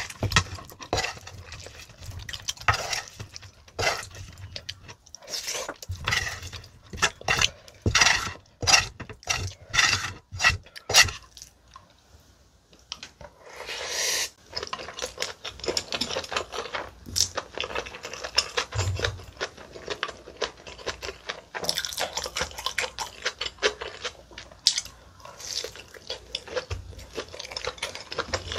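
A wooden spoon scrapes and clicks against a plate, with chewing between the strokes. After a short pause about halfway, there is close-miked chewing of spicy octopus rice and chopsticks tapping a bowl.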